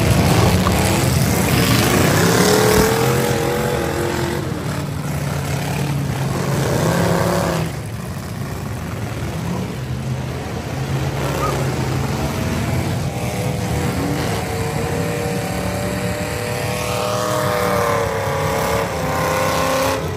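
V8 demolition derby car engines revving hard, their pitch rising and falling as the cars accelerate and back off. Near the end one engine climbs steadily in pitch.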